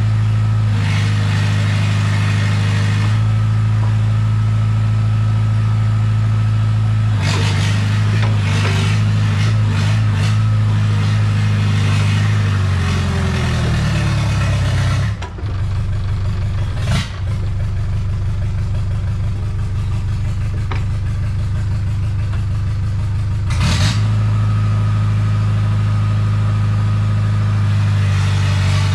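An engine running steadily. About halfway through its speed sinks over a few seconds, the sound dips briefly twice, and then it picks back up to a steady run a few seconds before the end.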